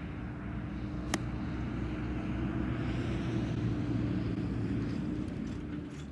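A golf club strikes a teed-up ball with a single sharp crack about a second in. A steady low engine drone runs underneath and swells a little in the middle.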